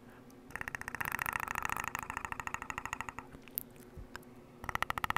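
A man imitating the Predator's clicking growl in his throat, forcing air past his uvula so that it rattles in a rapid train of clicks. It runs for about two and a half seconds, stops briefly, and starts again near the end.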